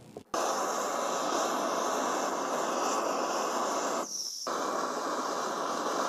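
Steady hiss of a gas burner flame heating a steel bowl in which plastic tactile switches are burning off, broken by a short gap about four seconds in.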